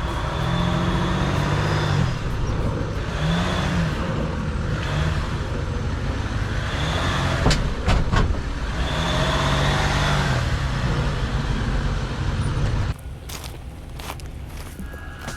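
Off-road vehicle's engine revving up and down in repeated swells as it crawls over rough trail, with tyre and gravel noise and a few sharp knocks about halfway through. Near the end it cuts suddenly to a quieter sound with scattered clicks.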